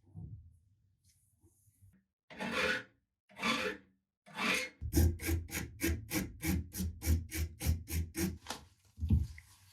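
Hand abrasive rubbing, as in filing or sanding: three slow strokes, then a fast, even run of about five strokes a second lasting nearly four seconds.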